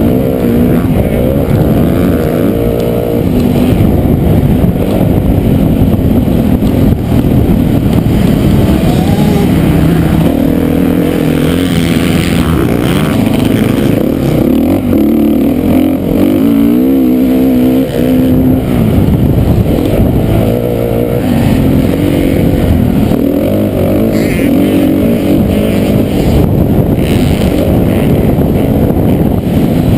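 Onboard sound of a 450-class motocross bike being raced: a loud engine revving up and dropping back again and again as the rider works the throttle and gears.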